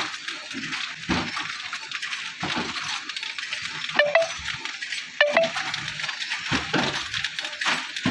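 Flow-pack wrapping machine running, a steady mechanical clatter with metallic knocks about every second and a quarter. Two louder ringing clinks come about four and five seconds in.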